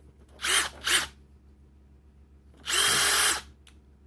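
Bosch GDX18V-1800 Freak impact driver run free with trigger pulls: two short blips about half a second apart, then a longer run of under a second. Each time the motor whines up to speed and then stops.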